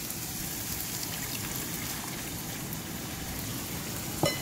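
A cup of water poured into a hot pan of frying mash (urad) dal in oil, which sizzles and crackles steadily as the water hits it. A short ringing knock near the end.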